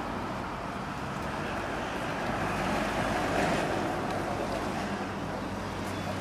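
Outdoor street ambience: steady road-traffic noise, swelling slightly about three seconds in.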